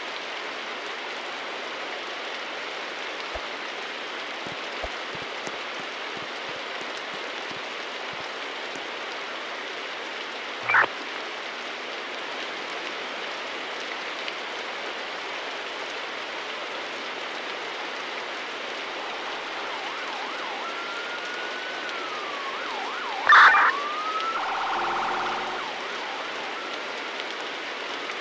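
Emergency vehicle siren sounding briefly in the distance, its tone sliding up and down, with a loud short blast partway through. Before it comes a single short whoop, over a steady background hiss.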